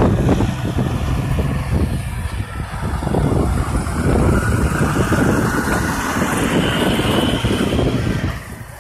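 Diesel engine of a semi-truck, a conventional Peterbilt-style tractor pulling a box trailer, running with a deep steady rumble as it drives over the railroad crossing and passes close by, with a whine rising in pitch midway; the sound drops away near the end as it moves off.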